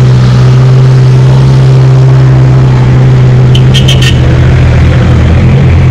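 A four-wheel drive's engine idling close by with a steady low hum, over the noise of other 4WDs driving past on a dirt track. A quick run of four sharp clicks comes about halfway through.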